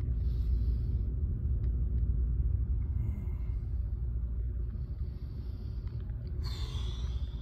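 Steady low rumble, with soft rustling and a brief scuffing burst near the end as someone moves about among the attic trusses.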